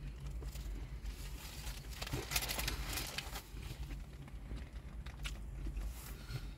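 A person chewing a mouthful of doner kebab, with small wet mouth clicks, and a stretch of rustling from the kebab's paper wrapping about two seconds in. A low steady hum runs underneath.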